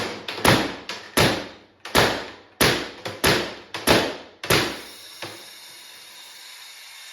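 Valken M17 pistol marker firing on high-pressure air, about a dozen sharp shots in quick, uneven succession. From about five seconds in, a steady hiss of escaping air follows as the marker jams: its bolt guide pin bent, jamming the bolt.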